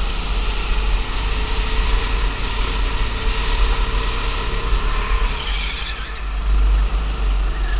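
Go-kart engine running at speed, heard from the kart itself, with a heavy low rumble throughout. About six seconds in the engine note falls away as the kart slows into a tight corner.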